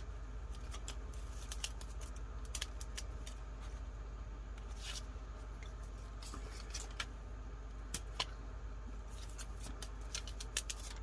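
Scattered small clicks and paper rustles of raised glue dots being peeled from their backing and pressed onto the corners of a paper journal page, over a steady low hum.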